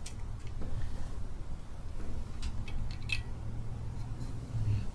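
Faint, scattered clicks and light taps of small metal parts being handled, as a sewing machine's electric motor and its mounting bracket are worked apart by hand.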